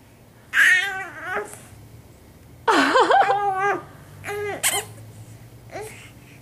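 Four-month-old baby's high, wavering squeals in four short bouts, the loudest about three seconds in.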